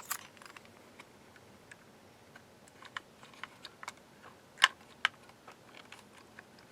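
Light, scattered plastic clicks and taps from a Brother P-Touch label maker being handled as its tape cartridge is fitted. The two loudest clicks come close together, about four and a half and five seconds in.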